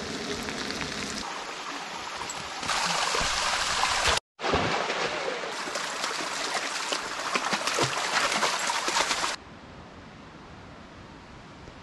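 Food sizzling in a frying pan, then, after a brief cut about four seconds in, a mountain stream running over rocks. About nine seconds in the water sound gives way to a much quieter steady outdoor hiss.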